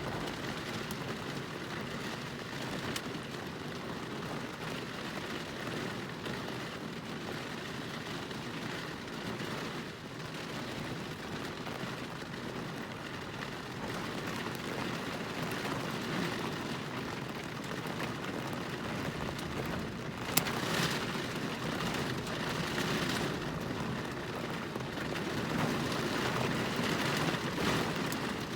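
Thunderstorm: steady rain with a low rumble throughout. About twenty seconds in, a sharp thunderclap cracks, and louder rumbling follows for several seconds.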